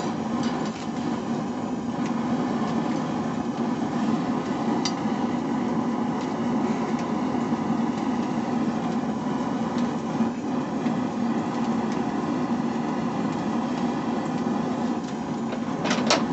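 Forge running with a steady hum carrying a strong low tone. A few hammer blows on hot steel come right at the end.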